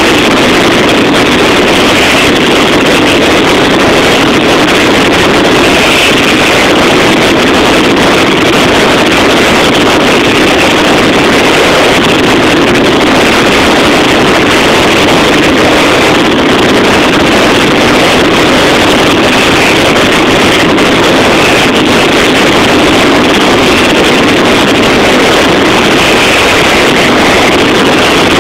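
Mascletà firecrackers going off in a dense, unbroken barrage, the bangs so close together that they merge into one continuous din. The sound is loud enough to overload the phone's microphone.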